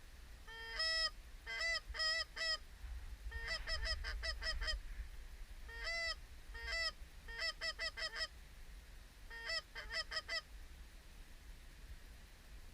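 Canada goose honks: short two-note calls, each breaking from a lower note to a higher one, coming in about six quick clusters.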